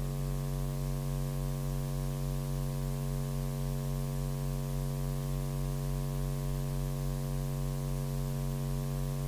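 Steady, buzzy electrical mains hum in the audio feed, unchanging throughout.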